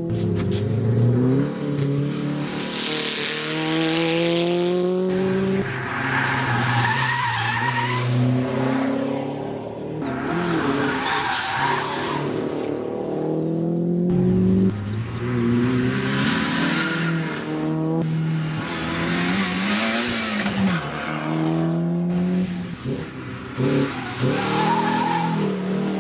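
Classic race cars' engines revving hard through the gears elsewhere on the circuit: repeated rising pulls, each cut by a gear-change drop, with spells of tyre squeal.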